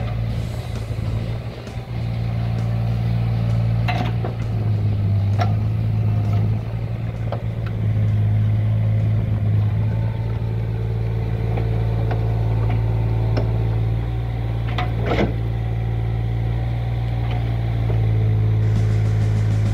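Amphibious excavator's diesel engine running steadily under work, with a few sharp knocks from the working machine, the loudest about fifteen seconds in.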